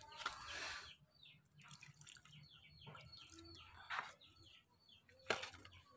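Faint wet squelching of hands kneading doughy fish-bait mix in a plastic basin, with a bird calling in a quick run of short falling high notes in the background and a couple of sharp knocks near the end.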